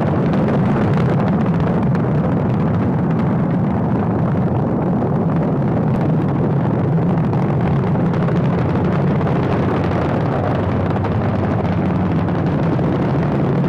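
Saturn V rocket's five F-1 first-stage engines at liftoff: a loud, steady, deep rumbling noise that holds without a break.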